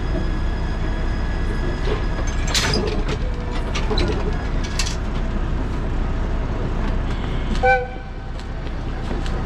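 Ikawa Line train running on the Abt rack section: a steady low rumble with scattered clicks and squeals from wheels and track. A short horn toot sounds about three-quarters of the way through and is the loudest sound.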